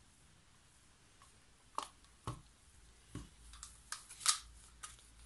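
Light clicks and taps from handling small plastic paint cups and wooden stir sticks at a table: about six short knocks spread over a few seconds, the loudest about four seconds in.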